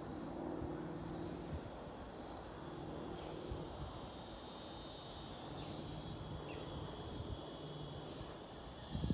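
Insects buzzing in a steady high drone, with a few small splashes of catfish taking floating feed pellets at the water's surface.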